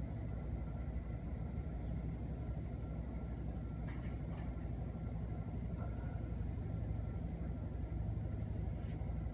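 Steady low engine rumble, with two short, light clicks about four seconds in.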